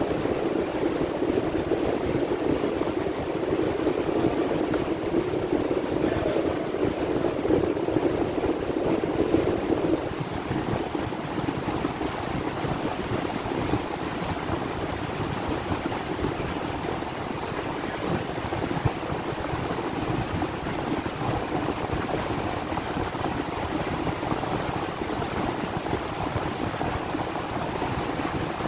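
Steady rush of air and fan noise from a wind tunnel blowing on a test piece. Its lower hum weakens about ten seconds in while the rush carries on.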